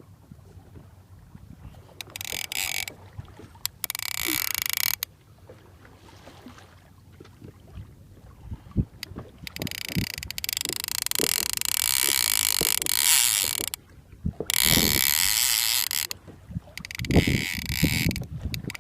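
Fishing reel's drag buzzing in about five separate runs, the longest lasting about four seconds, as a hooked hammerhead shark pulls line off against it. Between the runs come a few low knocks.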